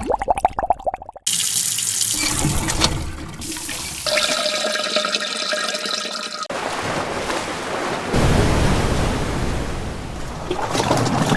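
A string of sampled sound effects played back to back, each cutting off abruptly into the next. Most are water sounds, such as a tap running into a sink and a rushing wash of water.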